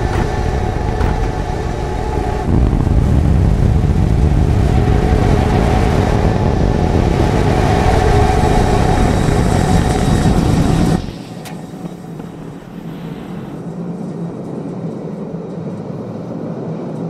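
SpaceX Starship SN15's Raptor rocket engines firing during the landing burn: a loud, steady roar that grows louder about two and a half seconds in and cuts off suddenly about eleven seconds in, at engine shutdown on touchdown. A much quieter steady rushing noise follows.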